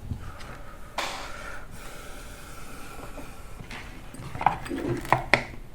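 A short breath through the nose about a second in, then a few sharp clicks and knocks of handling near the end.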